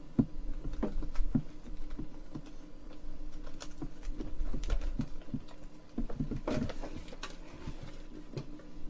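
Irregular knocks, clicks and rustles of someone moving about and handling things while fetching a comic book, over a steady low electrical hum.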